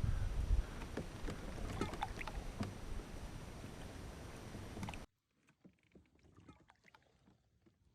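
Water splashing and sloshing around a kayak, with scattered sharp ticks over a low rumble. About five seconds in the sound cuts off abruptly, leaving only faint water ticks.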